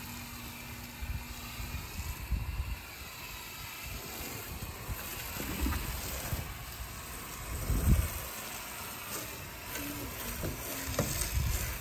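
Hose-end foam sprayer hissing steadily as it sprays soapy foam onto an SUV, with a few low rumbles underneath, the loudest about eight seconds in.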